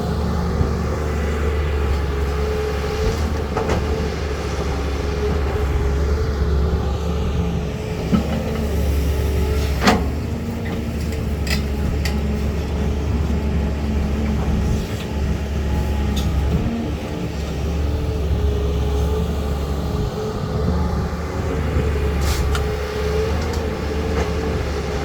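Caterpillar 320 hydraulic excavator's diesel engine running steadily under load, with a steady higher whine over the low drone. A few sharp metallic clanks come through, the loudest about ten seconds in.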